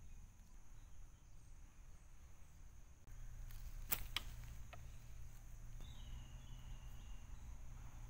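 Faint outdoor ambience with a steady high insect drone, like crickets. Two sharp clicks come a little before halfway, with a couple of smaller ticks after, as a hand works in the leaf litter around the trap's sticks.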